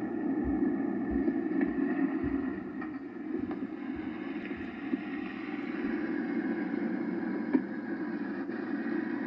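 Small built-in speaker of a 1981 Zenith 5-inch portable TV playing a program's soundtrack: a steady rumble of car driving noise, with no talking.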